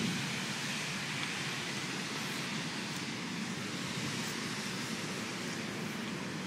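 Steady rain, an even hiss with a low rumble beneath it.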